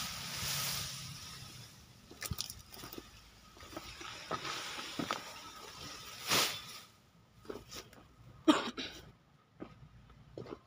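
Rustling of cut elephant grass stalks and leaves as a bundle is gathered up, followed by scattered snaps, clicks and knocks. The sharpest knock comes about eight and a half seconds in.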